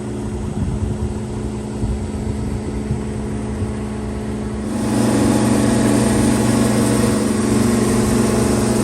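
A motor or engine running steadily with a low, even hum, which grows louder about five seconds in.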